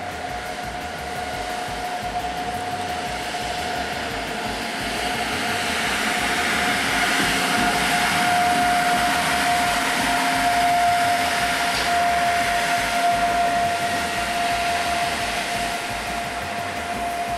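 Railion electric locomotive passing slowly: the hum of its running and cooling fans grows as it comes close, peaks, and fades as it moves away, with a steady high tone throughout.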